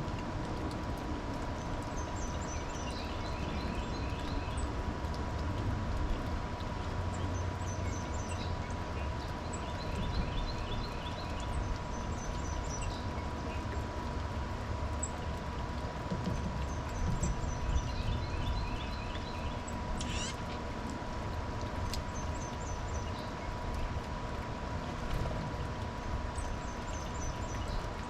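A songbird singing the same short song over and over, about every four to seven seconds: a few high notes followed by quick runs of lower notes. Under it runs a steady low rumble and a faint constant high hum.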